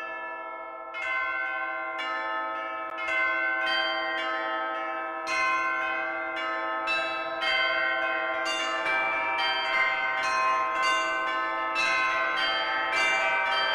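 A peal of church bells ringing, one struck bell after another with each note ringing on into the next. The strikes come closer together toward the end.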